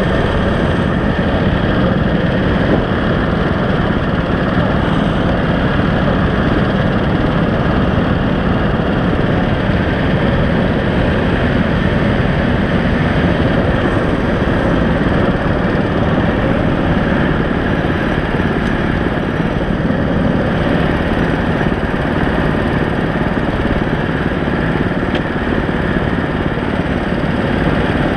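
Small petrol engines of hire karts running, loud and steady, as a line of karts idles and pulls away slowly close by.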